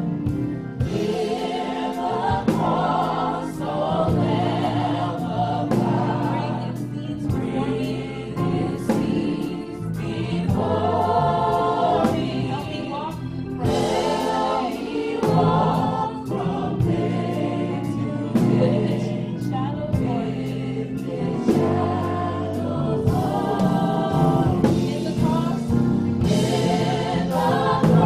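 A small gospel vocal group of six, men and women, singing together in harmony through microphones, over an accompaniment with a steady beat.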